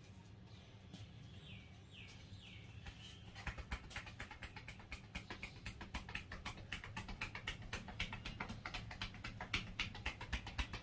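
A few faint falling bird chirps, then from about a third of the way in, the barber's hands tapping rapidly on the head in a head massage: quick, sharp, evenly spaced taps, several a second.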